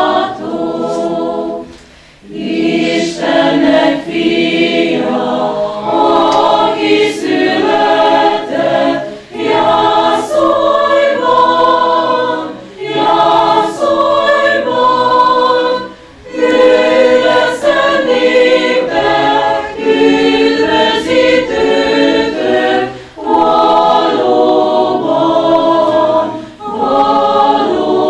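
A church choir singing in several parts, in phrases of three to four seconds with short breaks between them.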